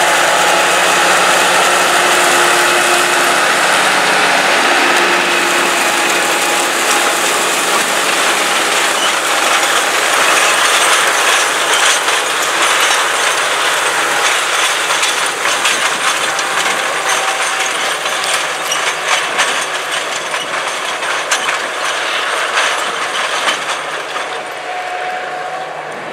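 Ford 1156 articulated tractor's 470 hp diesel engine pulling under tillage load, with the steady clattering and rattling of the 9-shank Case IH Ecolo-Tiger 875 disk ripper working through corn stalks. The sound grows fainter near the end as the rig moves away.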